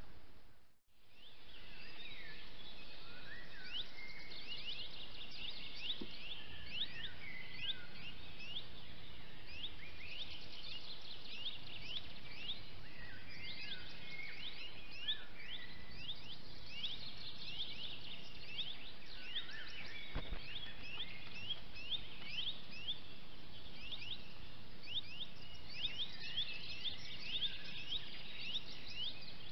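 Wild birds calling, a dense stream of short, quick chirps, over a steady hiss. The sound drops out briefly just under a second in, then the birdsong begins.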